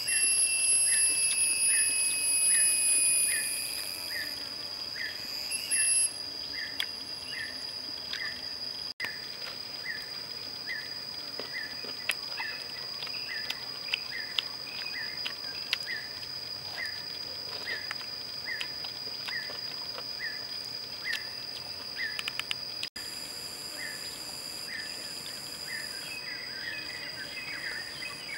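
Hillside forest ambience: a steady high-pitched insect drone, with a short chirp repeating at an even pace just under twice a second. A louder high buzz runs through the first few seconds, and a few faint clicks come and go.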